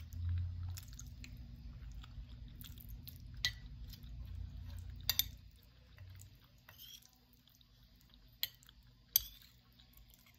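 A person chewing food close to the microphone, with a few sharp clicks of a fork against a plate; the chewing fades about six seconds in, and the loudest click comes near the end.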